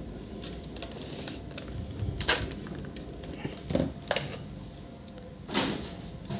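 A few scattered clicks and knocks of small objects being handled on a workbench, over a faint steady background.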